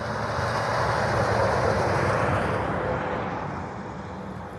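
A tanker semi-truck passes by. Its engine and tyre noise swells to a peak between one and two seconds in, then fades away.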